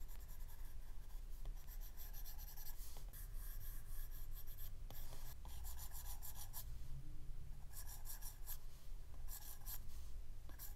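Apple Pencil tip scratching across an iPad screen in quick back-and-forth shading strokes, coming in short runs of rapid strokes with brief pauses between them.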